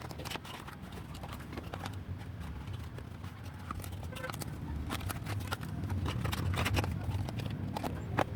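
Scattered light clicks and taps of hands handling PC components during assembly, over a steady low hum.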